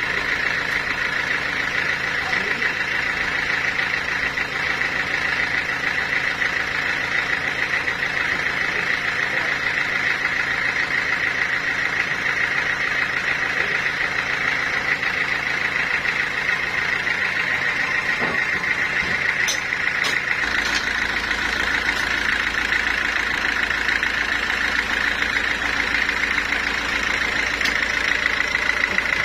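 Sawmill machinery running steadily with a continuous mechanical drone; its low rumble changes about two-thirds of the way through.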